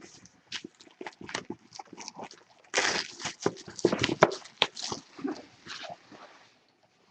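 Crackling and tearing as a sealed box of football trading cards is opened, a dense run of crackles from about three seconds in.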